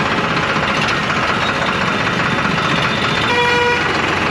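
Steady road and vehicle noise, with one short vehicle horn toot a little over three seconds in.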